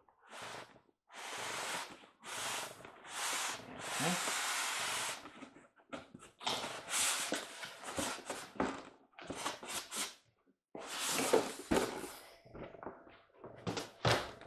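Cardboard box and packaging being handled and unpacked: a run of short rustling, scraping bursts with brief pauses between them.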